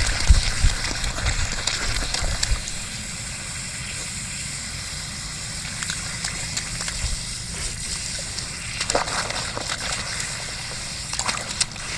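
A dog digging and splashing in a muddy puddle around a leaking garden hose, with water welling up and sloshing. The splashing is heavier in the first couple of seconds, then the water runs on more steadily with a few sharp splats.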